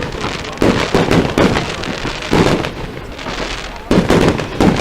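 Fireworks display: an irregular string of loud aerial shell bangs, several in quick succession, with crackle between them.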